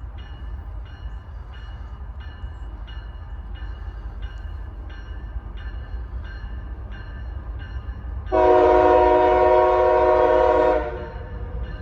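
Railroad crossing bell dinging about one and a half times a second over a low rumble, then an approaching CSX freight locomotive's air horn sounds one loud, long chord of about two and a half seconds, starting about eight seconds in. The dinging carries on after the horn stops.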